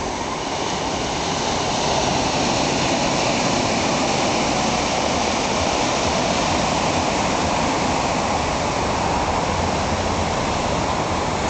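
Surf breaking and washing over a rocky sand beach, a steady rushing that grows a little louder about two seconds in.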